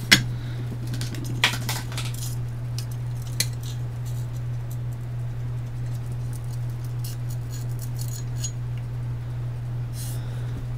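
Small metal and plastic parts of a robot-car chassis kit clicking and clinking as they are handled: one sharp click right at the start, a few more in the first few seconds, then only faint ticks, over a steady low hum.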